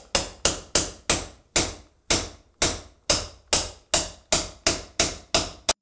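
About sixteen steady hammer taps on a metal bearing driver, roughly three a second, each with a short metallic ring, driving a new spindle bearing down into a Craftsman T110 mower deck's spindle housing until it seats.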